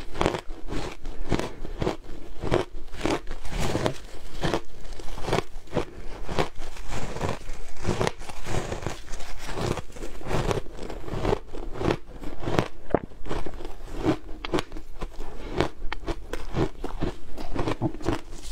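Crunching of frozen shaved ice being bitten and chewed, a dense run of sharp, irregular crunches with no pause.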